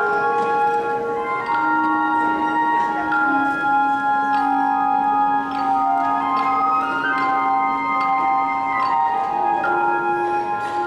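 Flute playing a slow melody over long, ringing held notes from tone chimes, in chords that change every second or two.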